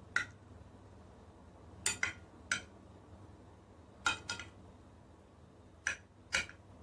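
Eating utensils clinking against dishes: about eight short, sharp clicks, some in quick pairs.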